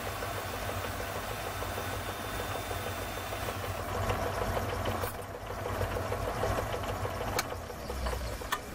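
Metal lathe running while machining a rough aluminium casting: a steady mechanical whir with a faint high tone that stops about three and a half seconds in. The sound drops a little about five seconds in, and two sharp clicks come near the end.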